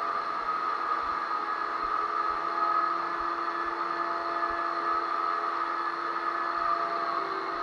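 Power drywall sander running steadily: an even whir with a steady motor whine.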